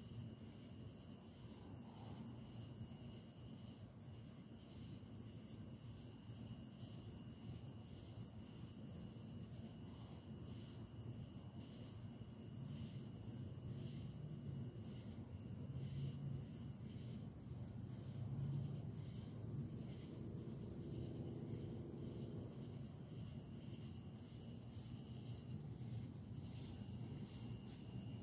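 Crickets chirping in a steady night chorus, with a faint low rumble underneath.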